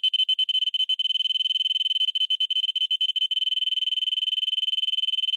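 Alarm sounder of a smoke or carbon monoxide alarm sounding a loud, steady, high-pitched tone with a rapid flutter.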